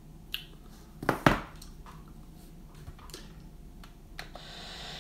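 A few scattered sharp clicks and knocks, the loudest a close pair just over a second in. Near the end a steady hiss fades up.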